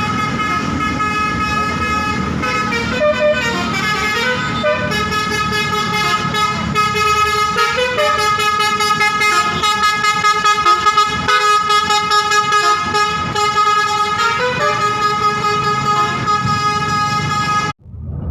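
A bus's multi-tone telolet air horn plays a tune of long held chords that step and slide between pitches, over a low rumble. It cuts off suddenly near the end.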